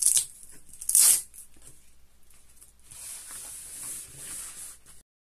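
Hook-and-loop (velcro) strips ripped apart twice, two short sharp tearing sounds about a second apart, followed by a softer rustling for about two seconds near the end.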